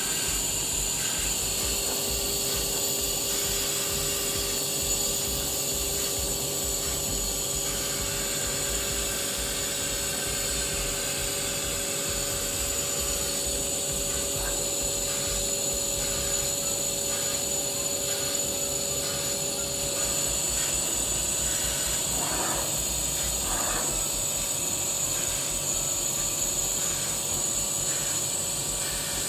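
Machinery running steadily: a constant mechanical noise with a high whine and lower hums, one hum stopping about two-thirds of the way through.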